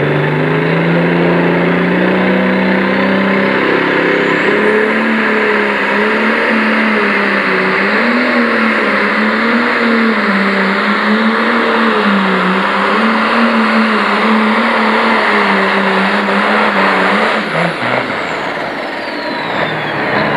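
Turbocharged diesel Pro Stock pulling tractor at full throttle pulling the sled. The engine revs up over the first few seconds, then holds a high, wavering note under load, with a turbo whistle climbing as it spools. About 17 seconds in the throttle comes off: the engine note drops away and the turbo whine falls.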